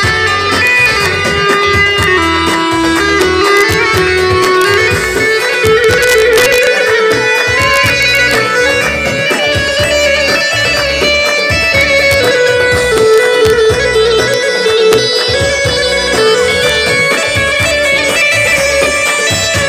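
Live Arabic wedding band music: a keyboard melody over a tabl drum beat, playing steadily and loud.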